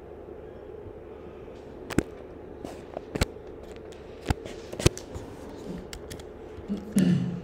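Computer keyboard keystrokes: a handful of sharp, separate key clicks spread over a few seconds, over a steady low hum, with a short low noise near the end.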